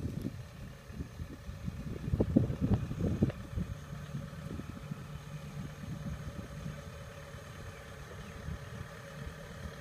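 Kubota DC70 combine harvester's diesel engine running steadily as the tracked machine approaches, with irregular heavy low thumps during the first few seconds.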